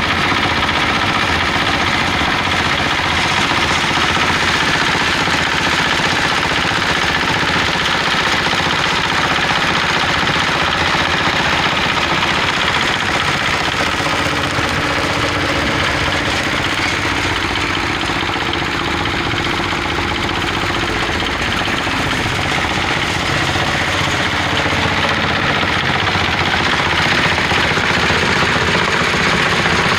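Diesel engine running steadily alongside a plastic-drying machine, whose dryer is heated by the engine's exhaust.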